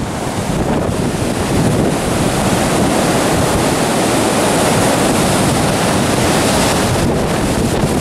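Gale-force wind blowing through woodland trees and buffeting the microphone: a loud, steady rush of noise.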